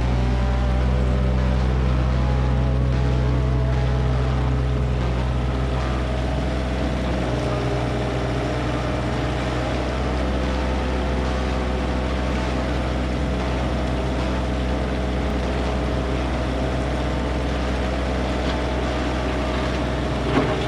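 Hitachi 35U mini excavator's diesel engine running steadily, its drone shifting slightly about seven seconds in, with one short knock near the end.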